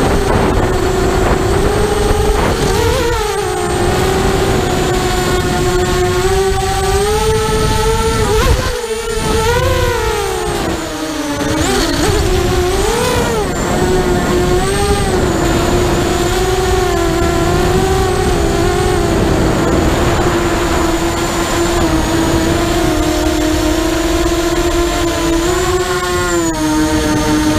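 Thug 180 FPV mini quadcopter's brushless motors whining steadily, the pitch swinging up and down with the throttle, most sharply around ten seconds in and again near the end. Wind rushes over the onboard microphone underneath.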